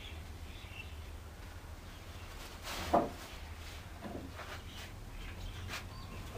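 Knocks from the wooden shelf plank being handled: one sharp knock about three seconds in and a fainter one a second later, with a few light clicks over a low steady hum.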